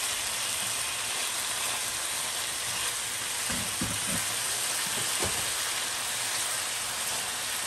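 Beef steak sizzling steadily in a hot frying pan, a continuous crackling hiss.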